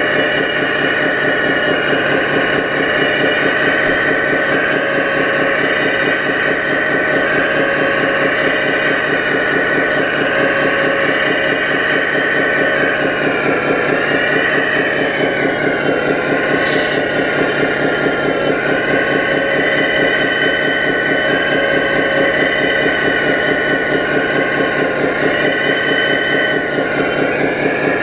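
Scale RC Hitachi Zaxis 330 hydraulic excavator running steadily while it digs: an even low throb with a higher whine that dips and wavers in pitch for a few seconds about halfway through.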